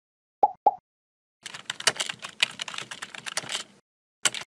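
Computer keyboard typing, a quick run of keystrokes lasting a little over two seconds. It comes after two short pops and is followed by a single click near the end.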